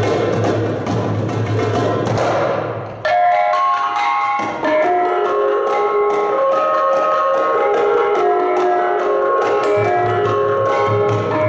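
Gamelan music. A dense, busy passage breaks off about three seconds in, and clear, ringing struck notes of bronze instruments follow in a quick steady pulse, overlapping into a melody.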